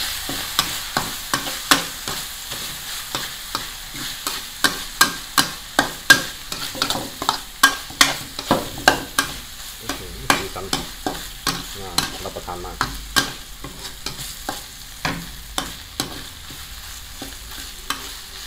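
Metal spatula clacking and scraping against a black metal wok while stir-frying minced frog with chilli paste, over a steady sizzle. The strokes come quickly, about two a second, and grow fewer and softer in the last few seconds.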